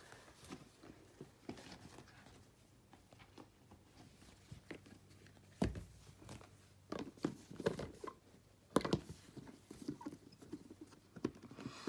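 Hands handling kitchenware and packaging: scattered light clicks, taps and rustles, with a couple of sharper knocks a little over halfway through and again just before the last few seconds.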